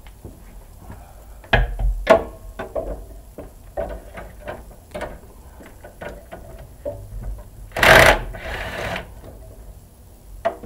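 Clicks, clinks and knocks of hand tools being worked on a tractor engine, coming irregularly. About eight seconds in there is a louder noisy clatter lasting about a second.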